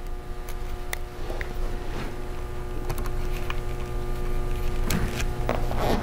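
Steady background hum with a few faint, scattered clicks from a small Phillips screwdriver turning the screws that hold a laptop battery in place.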